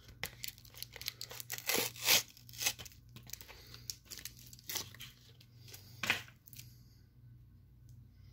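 A lollipop's plastic wrapping being torn open and crinkled by hand: a dense run of sharp rips and crackles over the first three seconds, then a few single crackles later on.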